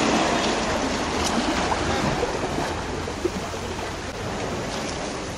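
Small waves washing onto the sand in a steady wash, with some wind on the microphone.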